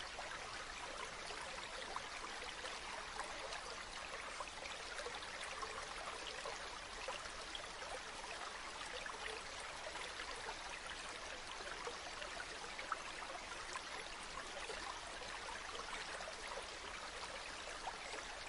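Water trickling and splashing steadily from a bamboo fountain spout into a pool, a continuous fine patter of small splashes.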